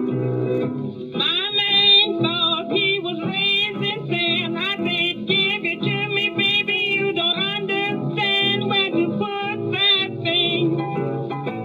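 A 1930s blues vocal record: a woman sings with vibrato over piano and string bass, her voice coming in about a second in after a short piano passage. It is an old 78 rpm recording, so there is no high treble.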